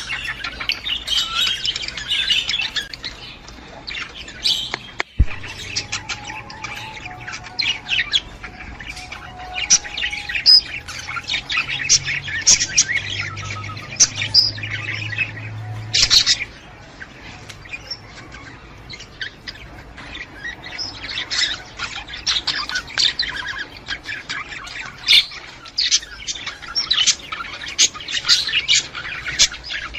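Budgerigars chattering continuously: a dense stream of rapid chirps and squawks.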